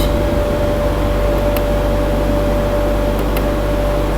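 Steady electrical hum and hiss with a constant mid-pitched tone, and a few faint clicks about a second and a half and three seconds in.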